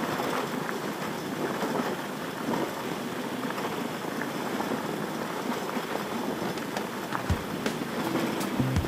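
Motorcycle riding over a loose gravel road: steady wind and tyre noise, with a couple of sharp clicks of stones about seven seconds in.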